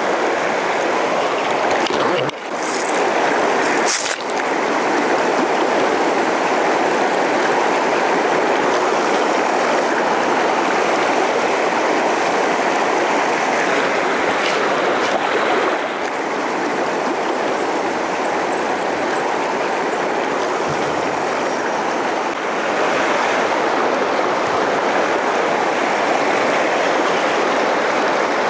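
Shallow mountain river rushing steadily over a riffle of stones: a continuous, even roar of flowing water.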